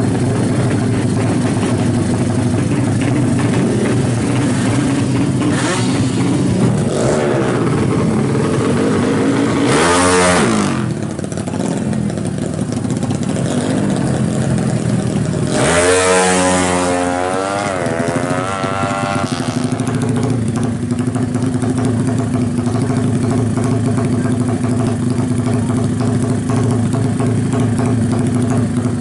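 Honda 200cc drag-bike engines with racing exhausts, running loud and steady at idle. They are revved twice: a short blip about a third of the way in, and a longer rise and fall of engine speed just past the middle.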